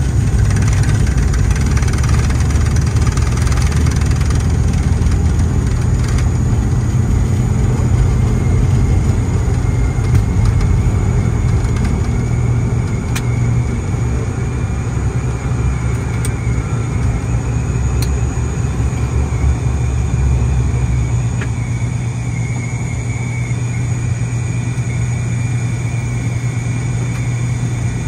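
Twin PW127 turboprop engines and propellers of an ATR 72 running steadily in flight, heard from inside the aircraft as a loud, even low drone with a faint high whine over it.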